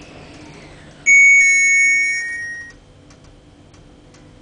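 A loud two-note chime, ding-dong: a high note about a second in, a slightly lower one just after, both ringing and fading out within about a second and a half.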